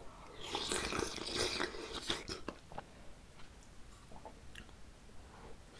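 Close-miked chewing and wet mouth sounds of a mouthful of doenjang-jjigae tofu and zucchini, loudest and busiest in the first two seconds or so, then softer scattered mouth clicks.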